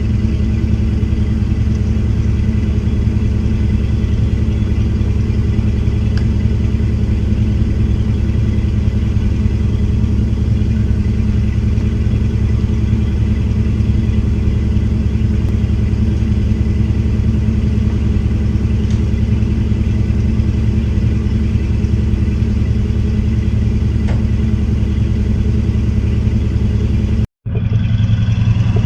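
Class A motorhome engine running with a steady low rumble. The sound cuts out for a split second near the end, then carries on.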